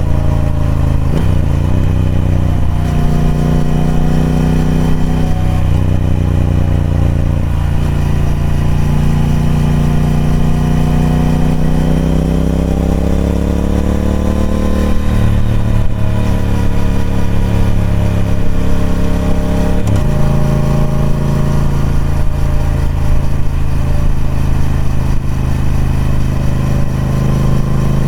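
Triumph Speed Twin 1200's parallel-twin engine through its stock exhaust, under way and changing gear several times, with a long steady rise in revs in the middle.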